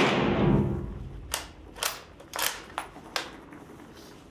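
A Spanish Mauser FR8 bolt-action rifle shot fired just before, its report ringing and dying away in the indoor range over the first second. Then five sharp metallic clicks over about two seconds as the bolt is worked to eject the spent case and chamber the next round.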